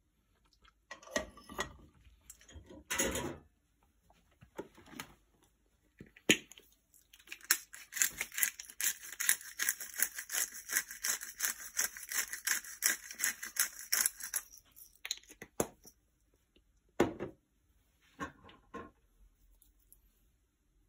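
Hand-turned pepper mill grinding black pepper: a dense run of fine, rapid clicks lasting about seven seconds in the middle. Before and after it there are a few short handling knocks.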